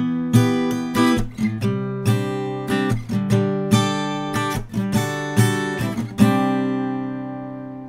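Small-bodied acoustic guitar strummed in a steady pattern of chords, close-miked with a Donner DC20 large-diaphragm condenser microphone. The last chord, struck about six seconds in, is left to ring and fades out.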